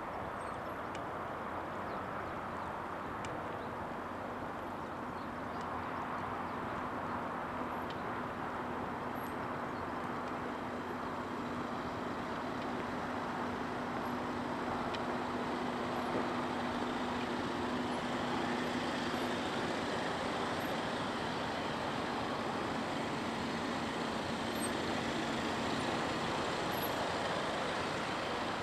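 Saab hearse and funeral limousines creeping forward at walking pace, engines and tyres giving a steady low running noise that grows a little louder in the second half as the cars draw close.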